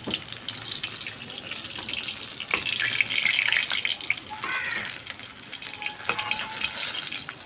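Brinjals frying in hot oil in a metal kadhai: a steady sizzle with fine crackling. The steel spatula gives a few scrapes and clinks against the pan as the brinjals are turned.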